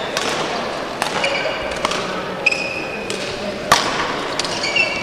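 Badminton rally: sharp racket strikes on the shuttlecock, the loudest about two-thirds through, and short high squeaks of shoes on the court floor, over the murmur of the sports hall.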